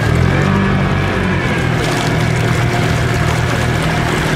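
Side-by-side UTV engine running at steady revs while the vehicle drives through deep water, with water rushing and sloshing around it.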